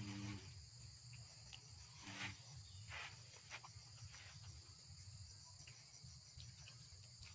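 Faint, steady chorus of insects such as crickets: a high, even buzzing with a regular pulse. A few soft clicks and two brief low murmurs, one at the very start and one about two seconds in, sit under it.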